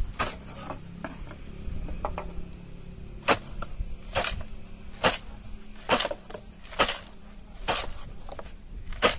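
Charcoal being tipped from a sack into a plate-earthing pit: a string of sharp clicks and knocks, roughly one a second, over a low background rumble.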